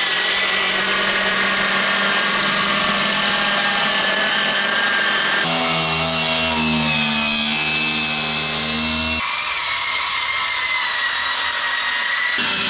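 Power tools running without a break while working on the lift's steel base, with a high whine over a rough noise. The tool sound changes abruptly about five and nine seconds in.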